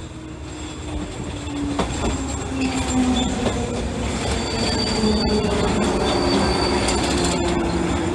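JR Kakogawa Line electric train running past at close range, its steel wheels rumbling on the rails and squealing in steady tones. The sound grows louder over the first few seconds as the train draws level, with a thin high squeal in the middle and a couple of sharp clicks from the wheels over the track.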